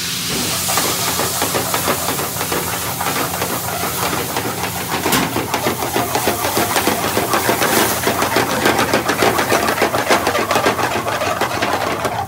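Grated onion sizzling as it fries in hot oil in an aluminium frying pan, with a metal spatula scraping and stirring it in quick, repeated strokes. The strokes get busier from about two seconds in.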